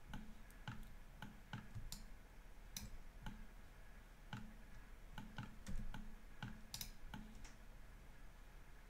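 Faint, irregular clicks of a computer mouse's buttons, about fifteen in all, spaced from a fraction of a second to about a second apart, over a low hum.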